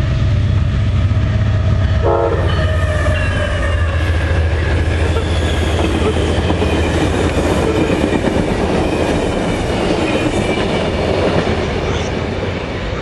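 Amtrak GE P42DC Genesis diesel locomotive passing close by at speed, its 16-cylinder engine droning low, followed by the rolling rumble and clatter of steel wheels on rails as the passenger cars go by. The sound eases slightly near the end.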